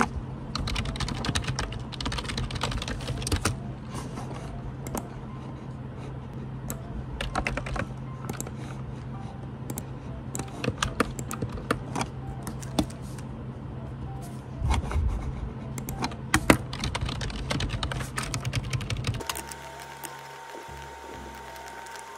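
Typing on a computer keyboard: irregular runs of key clicks over a steady low background hum. About three seconds before the end the hum stops and the typing thins out.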